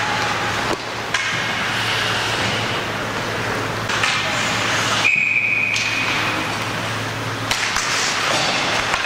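Hockey rink ambience with a steady low hum, and a short, shrill referee's whistle blast about five seconds in.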